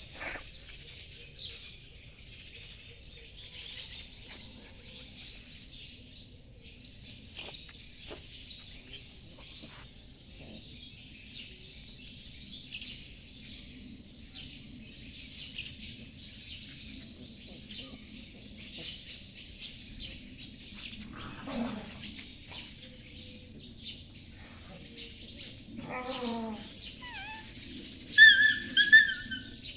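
Puppy yelping in short, high, gliding cries near the end, loudest in the last couple of seconds, while a larger dog pins and mouths it. A steady chirping of birds runs underneath.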